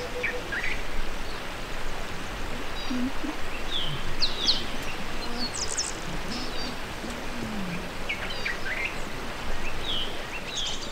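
Birds chirping over a steady hiss of background noise, several short, sharp, downward-sweeping calls every second or two.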